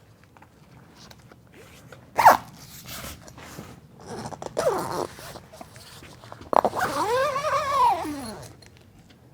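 Velcro tie-up straps being peeled apart in three rasping rips: a sharp loud one about two seconds in, a shorter one around five seconds, and a longer rip near the end whose pitch rises and then falls.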